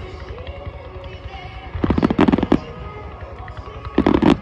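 Fireworks display: aerial shells going off in rapid volleys of sharp bangs, one run about two seconds in and another near the end.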